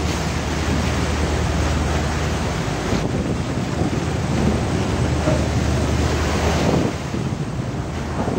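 Wind buffeting the microphone over the wash of the sea against a fishing boat's hull, a dense steady rush with a low hum beneath it.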